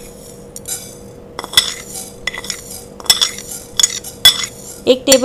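Metal spoon clinking and scraping against a plate while spooning fenugreek seeds into a dry nonstick frying pan: a string of separate light, ringing clinks, irregularly spaced, about one or two a second.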